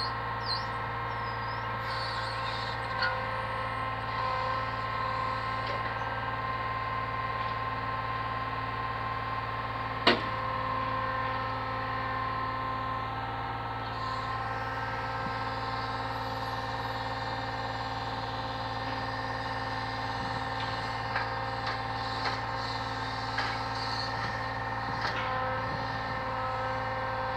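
Delivery truck's engine running steadily to drive its lorry-mounted hydraulic crane, with a steady whine. There is one sharp knock about ten seconds in and a few lighter knocks near the end as the crane works.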